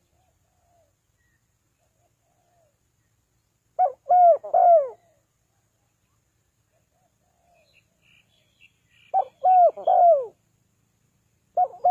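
Spotted dove cooing: loud three-note phrases, one about four seconds in, another about nine seconds in and a third starting near the end, with faint short notes in between.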